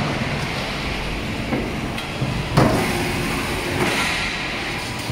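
Automatic sheet-metal shearing and stacking line running with a steady mechanical noise, broken by three metal clanks, the loudest about two and a half seconds in.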